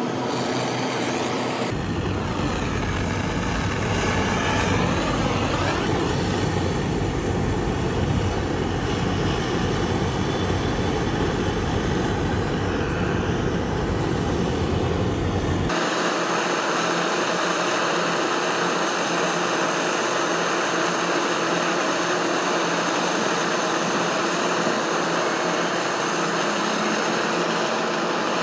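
Gas brazing torch flame hissing steadily while a cracked copper AC pipe is brazed, with the sound changing abruptly twice and losing its deep rumble about halfway through.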